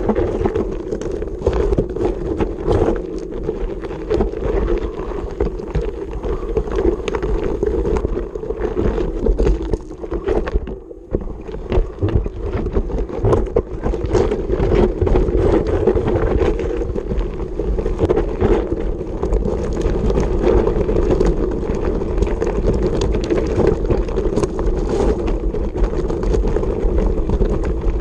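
Mountain bike riding fast over a loose, rocky gravel trail: a steady rumble of tyres and wind on the mounted camera, with frequent rattles and knocks from the bike over the stones. It eases briefly about ten seconds in.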